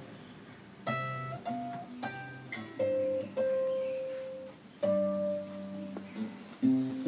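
Nylon-string classical guitar played fingerstyle: a chord fades away, then a slow melody of single plucked notes begins about a second in, with fuller chords near five seconds and again near the end.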